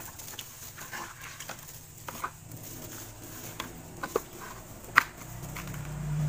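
Light clicks and taps as graham crackers are laid into a clear plastic food container by a hand in a plastic glove, with the sharpest click about five seconds in. A low hum builds near the end.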